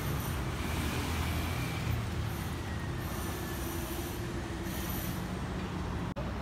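Street traffic noise: a steady rumble of car and motorbike engines and tyres on a busy city road, with a faint high whine over it.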